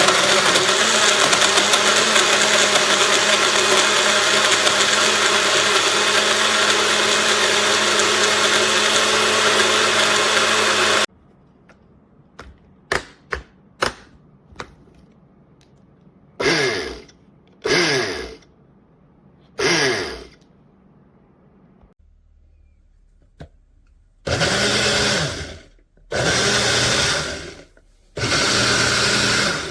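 Angashion 400 W personal blender's motor runs steadily for about eleven seconds and then stops abruptly. A few clicks and knocks follow, then the motor is pulsed: three short spurts that spin up and wind down, and near the end three longer bursts of about a second and a half each.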